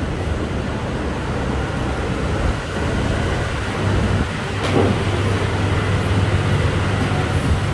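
Steady low rumble of city street traffic, with a brief sharp knock about halfway through and a low hum joining from about halfway.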